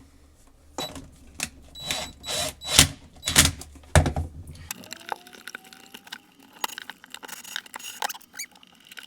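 Hand work on an electrical wall outlet: sharp clicks, knocks and scrapes of a screwdriver, wires and the plastic receptacle as the ground wire is fastened and the outlet is fitted into its box. The clicks come thick in the first half and thin out to a few quieter ones later.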